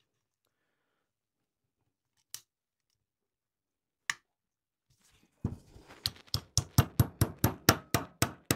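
Brass hammer tapping a steel pin into the trigger unit of a Weihrauch HW35 air rifle. Two single light clicks come first, then over the last three seconds a quick run of sharp metallic taps, about five a second.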